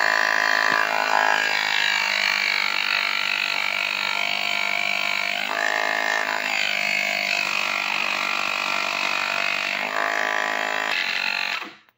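Small battery-powered portable air compressor (tyre inflator) running: its electric motor and piston pump give a steady hum, then cut off suddenly near the end.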